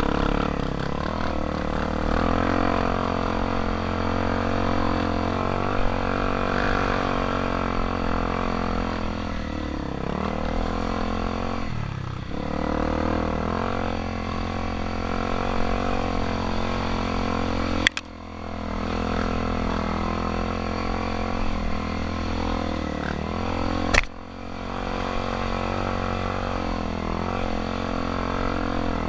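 Off-road dirt bike engine running, heard from on the bike, its revs rising and falling with the throttle over a rough trail. Twice in the second half a sharp knock, each followed by a brief dip in the engine sound.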